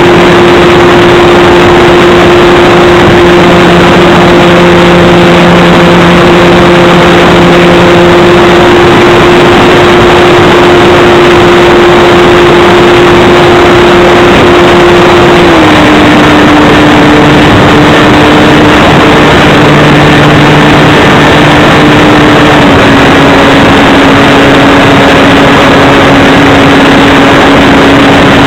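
Electric motor and propeller of a Flite Test Baby Blender RC foam plane, heard loud from an onboard camera in flight: a steady whine over heavy wind rush. The pitch steps down twice, about halfway through and again later, as the motor slows.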